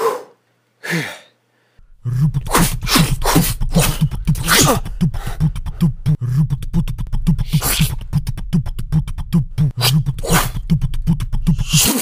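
Mouth-made fight sound effects: two short falling vocal swishes, then about two seconds in a fast, beatbox-style run of vocal punches and hits over a steady low thump.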